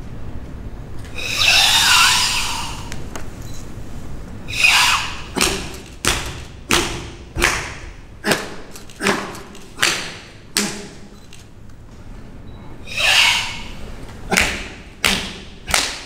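Sanchin kata testing (shime): long, forceful hissing exhalations from the karateka's Sanchin breathing, three times, and a run of sharp open-hand slaps on his bare back, shoulders and arms, about eight in a row a little under a second apart in the middle, then three more near the end.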